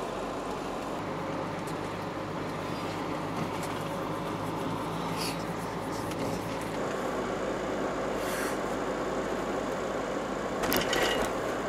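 Steady road and engine noise of a moving van heard inside the cabin, a low hum under a wide rush. There are brief rustling or clattering sounds about five and eight seconds in, and a louder one near the end.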